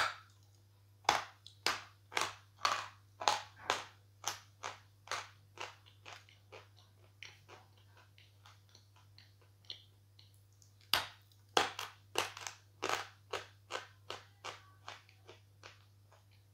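A person bites into a block of sawn natural chalk and chews it with crisp crunches, about two a second, that fade over several seconds. A second bite about 11 s in starts another run of crunching chews.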